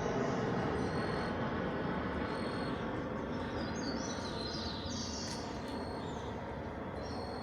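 An airplane's engine drone, steady with several held tones, slowly fading. Birds chirp briefly a little past the middle.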